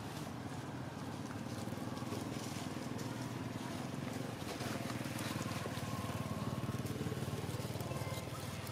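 Steady low engine hum that slightly strengthens about halfway through, with faint thin high tones over it.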